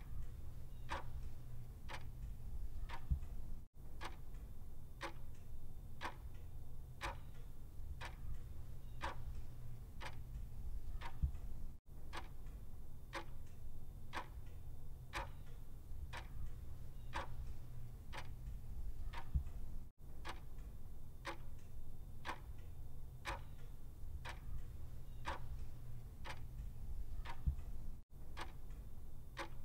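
Clock ticking steadily, about two ticks a second, over a low steady hum. The ticking cuts out briefly about every eight seconds.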